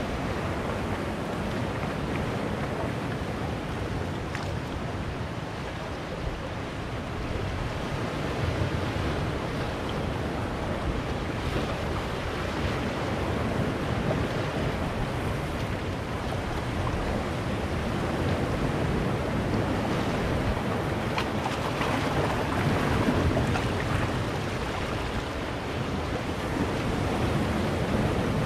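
Sea surf breaking and washing among boulders on a rocky shore: a steady rush of water that swells several times as waves come in, loudest a little past two-thirds of the way through and again near the end.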